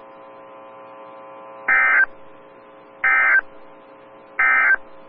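Three short bursts of Emergency Alert System SAME digital data tones, about a second and a third apart, the end-of-message code that closes a NOAA Weather Radio warning broadcast. Between the bursts there is a faint steady hum from the radio.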